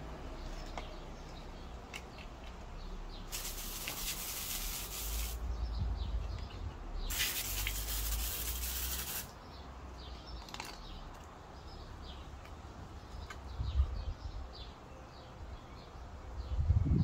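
Two bursts of hissing, each about two seconds long, with a low rumble under them and birds chirping faintly throughout.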